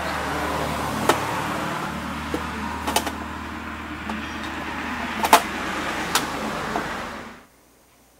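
Several sharp plastic clicks as magnetic letters and the toy school desk's lid are handled, over a steady background hum. Everything cuts off suddenly near the end.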